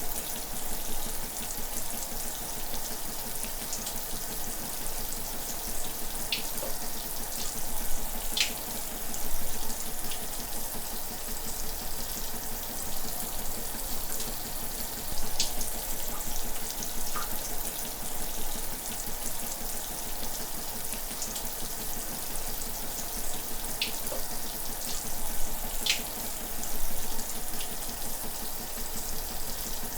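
Shower running steadily, a continuous hiss of falling water with occasional brief splashes or drips standing out.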